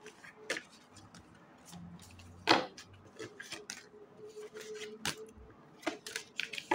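Tarot cards being drawn from a deck and laid down, a handful of sharp card snaps and slaps with soft rustling between them, the loudest about two and a half seconds in.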